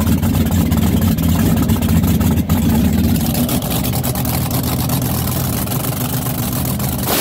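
A steady, loud mechanical drone, like an engine or motor running.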